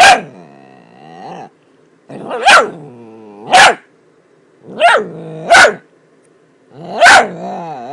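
Miniature dachshund barking and vocalising: about six short, sharp barks, with longer wavering, pitched grumbling noises between them.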